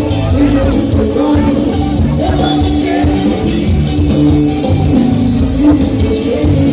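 Loud carnival music with singing, playing without a break.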